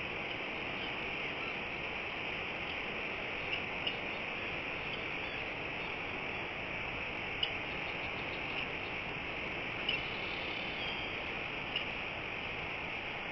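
Outdoor ambience: a steady hiss, strongest in the upper-middle range, with a handful of short, high chirps scattered through it.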